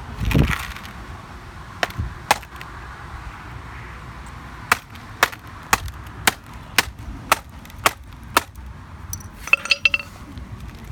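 Hammer striking a smashed MacBook's keyboard to knock loose keys back in. A heavy knock comes first, then two sharp taps, then a steady run of about eight taps at roughly two a second, with a few brief clinks near the end.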